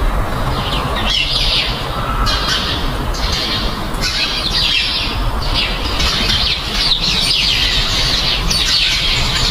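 Birds chirping over and over in short, high bursts about once a second, over a steady low rumble.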